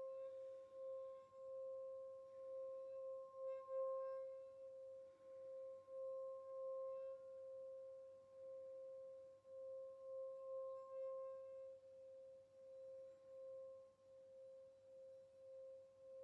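Small brass singing bowl being rimmed with a wooden mallet: a steady, sustained ringing tone with a fainter higher overtone, wavering in loudness about twice a second as the mallet circles.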